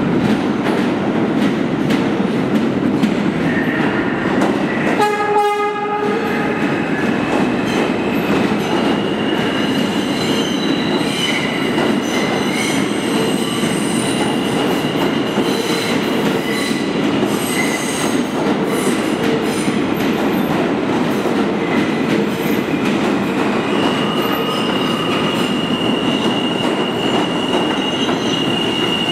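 New York City subway train pulling into an underground station with a steady rumble of wheels and motors. A short horn blast sounds about five seconds in. From about nine seconds on a high wheel squeal rings out, strongest near the end as the cars pass close by.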